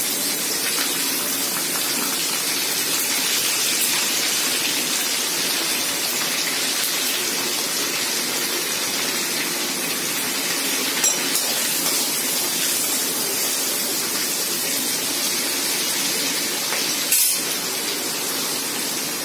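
Green chillies, cumin and coriander seeds sizzling steadily in hot oil in a steel kadhai, a constant frying hiss. A brief click sounds about eleven seconds in and another about seventeen seconds in.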